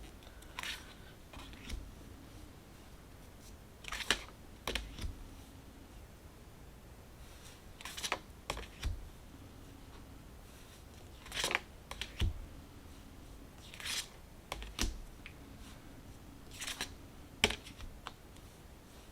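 Large tarot cards being handled one at a time during a flip-through, making a pair of short swishes and taps roughly every three to four seconds.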